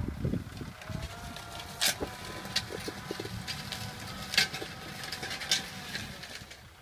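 Farm tractor's engine running steadily as it pulls a disc harrow through dry soil, with a few sharp clicks or knocks now and then.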